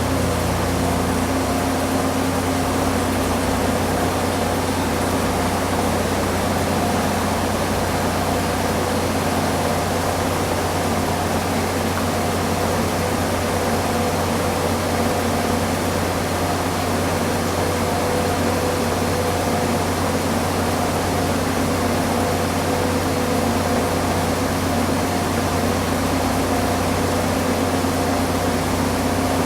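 Front-load washing machine on its spin cycle, the drum turning at a steady high speed: a continuous low hum with a few held whining tones over an even rushing noise. The low hum settles slightly lower about a second in.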